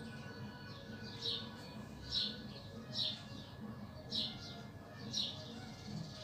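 A small bird chirping: short high chirps repeating about once a second.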